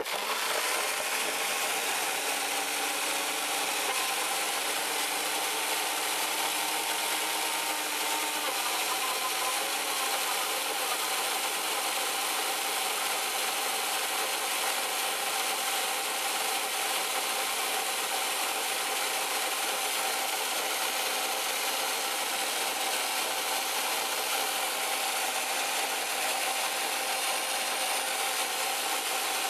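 A Nutribullet and a Ninja Professional 1000-watt countertop blender running together at full speed, blending fruit, kale, frozen blueberries and flaxseed in liquid. The whir is steady, its pitch shifting a little in the first eight seconds or so before it settles.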